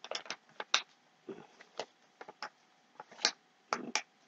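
Irregular small clicks and taps of hard pieces of a collectible figure and its stand being handled and pushed together by hand, failing to snap into place.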